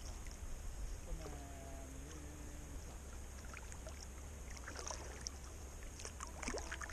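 Kayak paddle working the water: small splashes and drips off the blade in two clusters, around the middle and near the end, over a steady low rumble. A faint distant voice is heard briefly about a second in.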